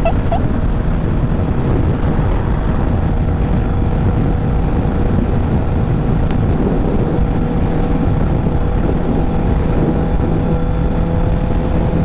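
Strong wind buffeting the microphone over a Honda CBR650F's inline-four engine running at a steady pace while riding.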